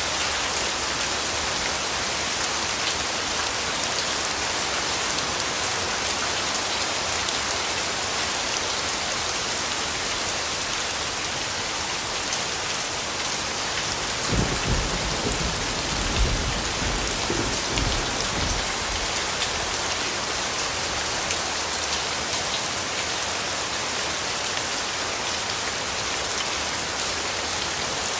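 Steady rain falling, a dense even hiss of drops on surfaces, with a low rumble of thunder swelling a few times about halfway through.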